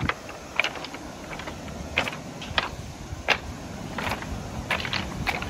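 Footsteps on a beach of loose rounded pebbles, the stones clacking and crunching underfoot in sharp, irregular clicks.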